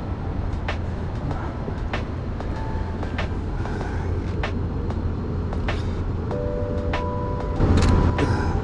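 Busy city street ambience: a steady low rumble with sharp light clicks about once a second and a few short steady electronic beeps in the second half. The rumble swells louder near the end.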